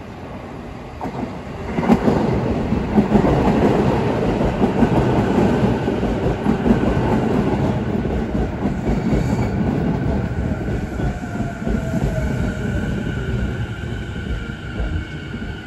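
Sotetsu 11000 series electric train pulling into the station: the rumble of the wheels on the rails rises sharply about two seconds in as the front cars reach the platform and stays loud as the cars pass. From about ten seconds in, steady high tones and a briefly falling whine come in as the train slows to stop.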